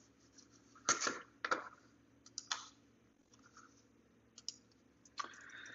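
About half a dozen faint, sharp clicks and taps at irregular intervals from working a computer's keys and controls, with a brief soft rustle near the end.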